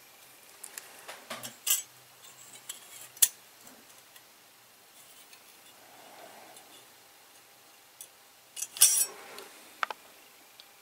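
A handful of sharp metallic clinks and knocks of hand tools handled against metal engine parts, the loudest about three seconds in and a short cluster near nine seconds.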